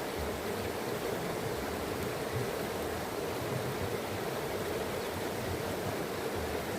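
Flowing water rushing steadily, an even, unbroken wash of noise.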